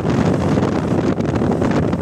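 Wind buffeting the microphone: a loud, steady rushing rumble with irregular gusts.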